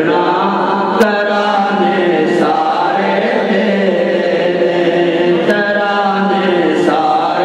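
A man chanting a devotional recitation in long, drawn-out melodic lines into a microphone, amplified with reverberation over a PA. There is a sharp click about a second in.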